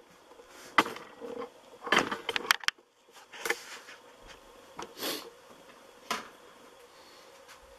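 Handling noise as a camera is picked up and moved: scattered sharp knocks and clicks mixed with short rustling swishes, spread irregularly, with a brief lull about three seconds in.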